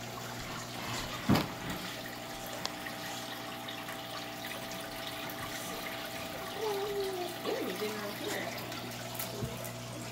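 Aquarium filter running: water flowing over a steady low hum, with one sharp knock about a second in.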